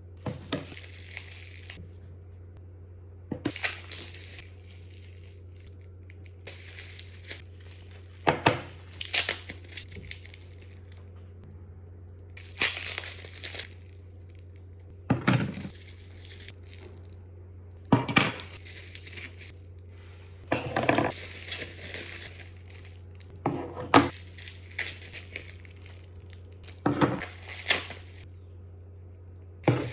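Packaging being handled and opened: crinkling and tearing come in repeated short bursts a second or two apart, with occasional light clinks. A steady low hum runs underneath.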